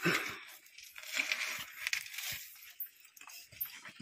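Irregular scuffing and crunching of people moving over loose rock and grit, with a few light knocks.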